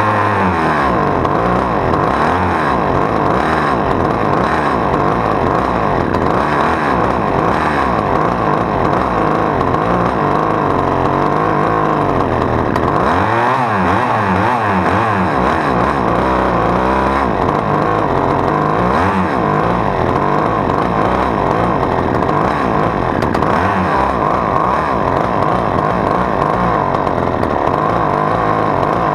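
Husqvarna T435 top-handle chainsaw's small two-stroke engine running on test after its pulled-out intake boots were refitted. It runs at a high, steady speed, and its pitch swings down and up in repeated revs around the middle.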